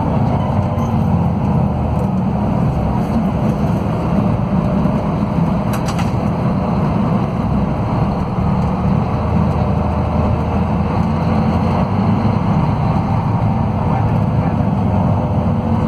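Scania DC13 diesel engine of a Scania K400IB coach running steadily while the coach moves along in traffic, heard from inside the passenger cabin. A brief click comes about six seconds in.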